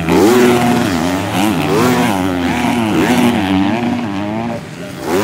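250cc motocross bike engines revving hard, the pitch climbing and dropping over and over as the throttle is worked and gears change.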